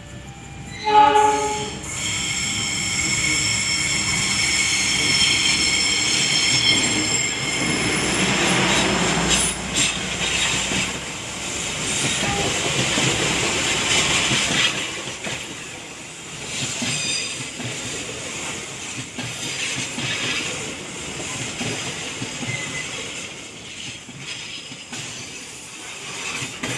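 A short locomotive horn blast about a second in, then high, steady wheel squeal as the passenger train's flanges grind round the curve. The rumble of the train passing close follows, then a rhythmic clickety-clack of the coach wheels over the rails as the coaches roll by.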